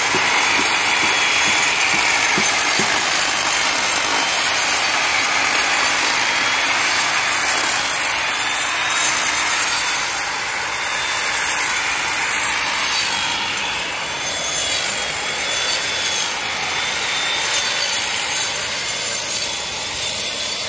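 Handheld grinder with a stone-cutting disc grinding a concrete wall surface: a steady motor whine with grating from the disc, wearing down lumpy, honeycombed concrete to level it.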